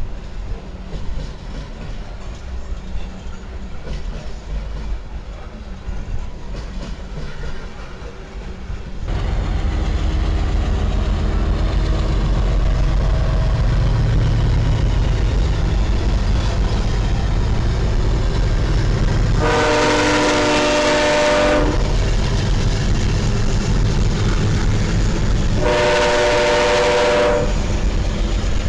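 A freight train of loaded flatcars rolling past. About nine seconds in it gives way to louder, close-by Canadian Pacific diesel locomotives running past with a steady low engine rumble. Their air horn sounds a several-note chord twice, each blast about two seconds long.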